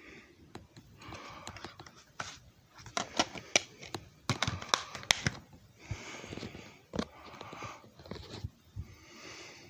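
Close-up handling noises: a cluster of sharp clicks and knocks about three to five seconds in, between stretches of rustling or breath-like hiss.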